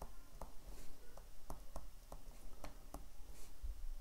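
Stylus tapping and scratching on a tablet while handwriting, a string of light clicks about two or three a second over a low steady hum.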